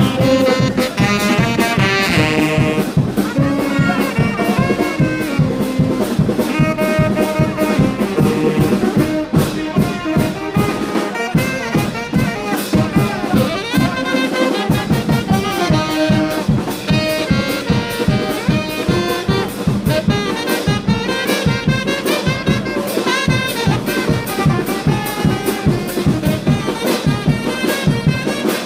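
Brass band music: trumpets and trombones playing a tune over a steady drum beat.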